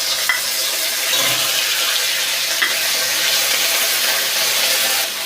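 Ginger paste sizzling in hot oil in a kadai, a steady hiss as its moisture hits the oil, with a few faint ticks.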